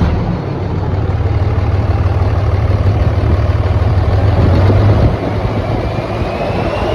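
Dodge Ram 3500's Cummins inline-six turbodiesel running just after start-up, a steady low diesel rumble. From about five seconds in a whistle from the turbo rises steadily in pitch, loud because the turbo's silencer ring has been removed.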